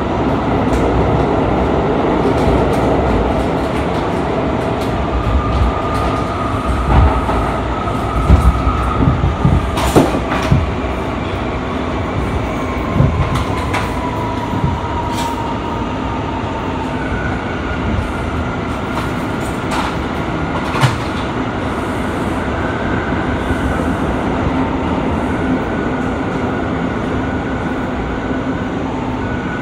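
Bombardier R179 subway car running between stations, heard from inside the car: a steady rumble of wheels on rail with a run of sharp knocks from rail joints, clustered about a third of the way in. A thin high whine sits over it, sliding down in pitch around the middle and coming back higher later.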